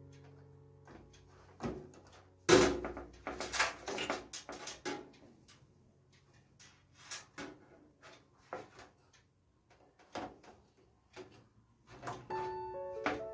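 Clicks and knocks of computer hardware being handled and fitted together, with one loud knock about two and a half seconds in followed by a couple of seconds of clatter, then sparser ticks.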